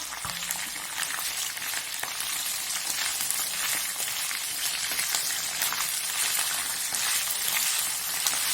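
Cut okra pieces frying in a little hot oil in a pan: a steady sizzling hiss with scattered crackles and spits, getting slightly louder partway through.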